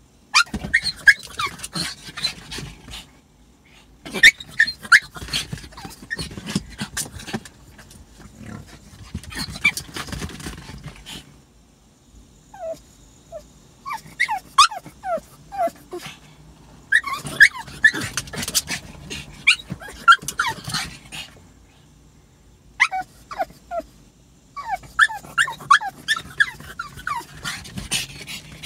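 A dog left alone in a parked car whining and yipping, high-pitched cries in about five bouts of a few seconds each with short pauses between.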